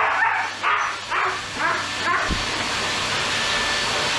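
Husky yelping and howling in short cries about twice a second, a tantrum at being blow-dried with a grooming hose dryer. About two seconds in the cries stop and the dryer's steady rushing hiss carries on alone.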